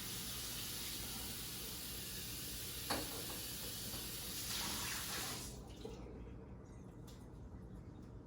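Kitchen tap running as a brand-new glass mason jar is rinsed out under it, with a brief knock near the middle. The water shuts off about five and a half seconds in.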